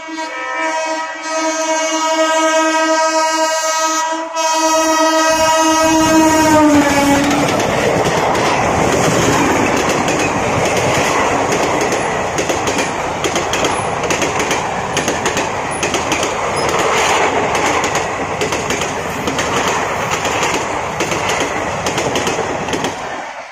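Indian Railways WAP-4 electric locomotive sounding its horn in one long blast of about seven seconds, its pitch dropping slightly as it passes. Then its passenger coaches rattle past at speed, wheels running on the rails.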